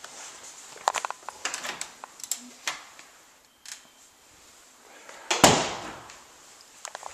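A string of clicks and knocks, then a louder rushing scrape a little over five seconds in: a utility closet door being opened and handled, with handling noise from the camera.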